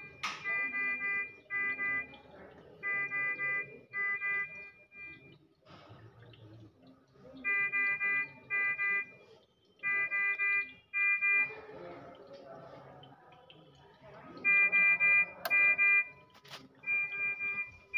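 Medical equipment alarm beeping: short, steady electronic beeps in quick groups of two or three, repeating every couple of seconds, typical of a bedside patient monitor or pulse oximeter alarming.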